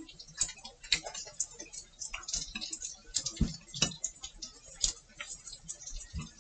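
Chopsticks clicking and tapping against a plate as food is picked up: irregular light clicks, with a couple of duller knocks about three and a half seconds in.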